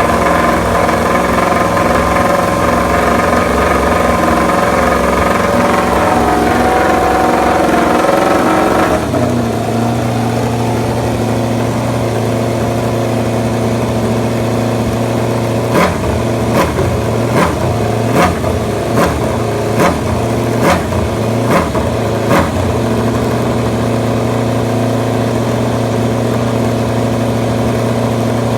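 MotoGP racing motorcycle engine running at a steady idle, its tone changing abruptly about nine seconds in. Around the middle it is blipped about nine times in quick succession, roughly one sharp rev a second, then settles back to idle.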